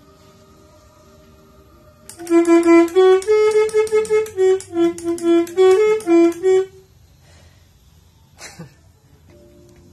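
Telolet multi-tone air horn (Maroo horns switched by a 17-button module) playing a quick melody of short, reedy horn notes, starting about two seconds in and lasting about four seconds. A faint steady tone comes before it, and a single click sounds near the end.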